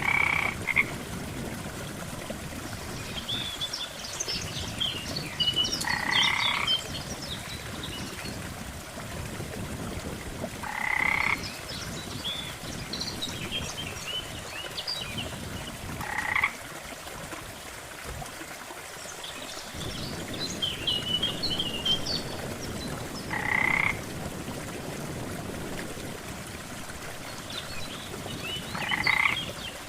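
Frogs croaking by a lake. A louder call comes about every five to six seconds, with clusters of quicker, higher chirps in between, over a steady low water sound.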